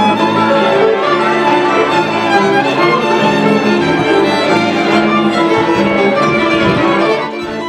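Moravian cimbalom band playing a folk tune, with violins leading over the cimbalom and double bass. The music drops a little in level near the end.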